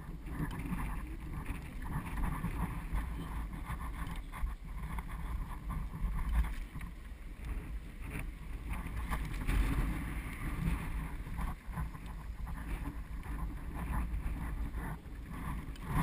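Wind rushing over the microphone and a steady low rumble of a bike trailer rolling on pavement behind a bicycle, with scattered small rattles and knocks from the trailer over road bumps.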